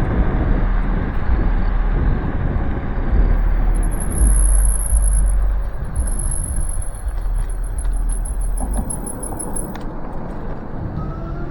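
Nanrobot Lightning 2.0 electric scooter ridden at speed: heavy wind buffeting on the microphone and solid-tyre rumble, with the dual 800-watt motors' whine gliding down at the start and rising again near the end. A thin, high-pitched whine pulses through the middle.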